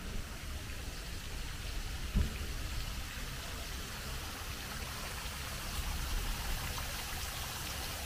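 Park fountain jets spraying water that falls back into the basin, a steady splashing hiss, with one short low thump about two seconds in.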